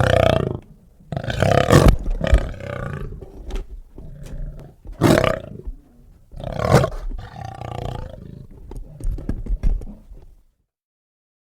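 A big cat growling, a series of deep rough growls a few seconds apart, one short and sharp about five seconds in, with a few brief bursts near the end before it stops about ten seconds in.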